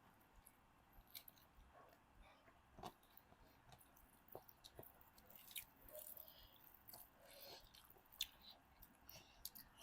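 Faint chewing and eating mouth sounds: scattered soft clicks, smacks and small crunches.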